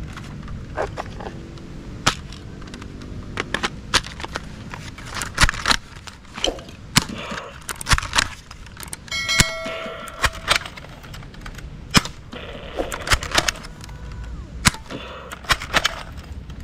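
Toy AWM-style foam-dart sniper rifle being shot over and over: a string of sharp snaps and clacks, roughly one or two a second. Electronic pop-up targets give an electronic beep about nine seconds in and again more faintly near fourteen seconds.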